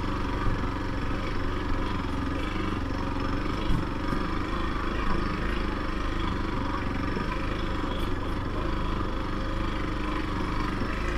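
Motorcycle engine running steadily while riding, at an even pace with no revving.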